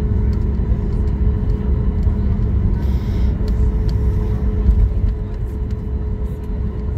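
Cabin noise of a Boeing 737 MAX 8 taxiing after landing: a steady low rumble with a constant mid-pitched hum, and faint clicks and rattles scattered through it.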